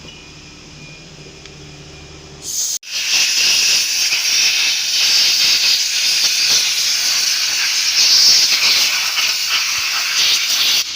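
Loud, steady hiss of a spray or jet of air, starting abruptly about three seconds in after a quieter stretch of low background hum.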